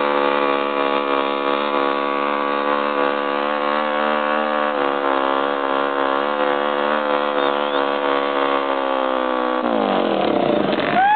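Honda XR 250 Tornado's single-cylinder four-stroke engine held at high revs under full throttle, a steady, slightly wavering note; about ten seconds in the note breaks up and climbs in pitch.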